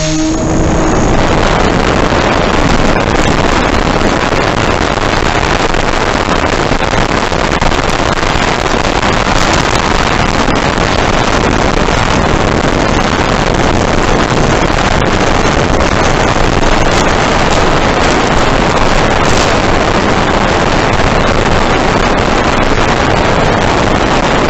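Motor pitch rising in the first second as the Believer FPV plane takes off, then a loud, steady rush of air and propeller noise while it climbs and banks.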